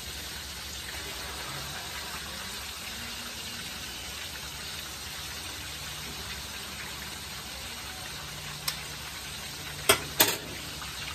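Whole red snapper frying in a pan of hot oil, a steady sizzle. Three sharp clicks come near the end.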